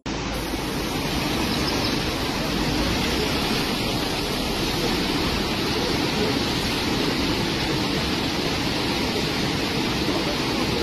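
Muddy floodwater rushing in a fast, turbulent torrent: a steady, unbroken rushing noise.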